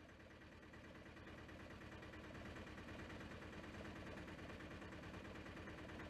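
Faint, steady room tone of a dining room, slowly fading up, with no clear voices or music.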